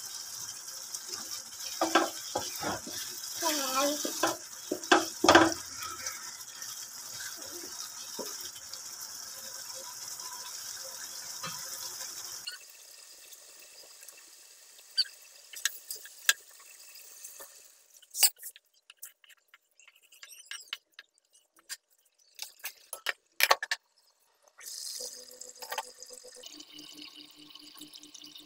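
A pan of fish and tomato curry simmering, with a steady hiss of bubbling and the spatula clacking against the pan as it is stirred. After a cut about twelve seconds in it goes much quieter, leaving scattered pops as thick bubbles burst.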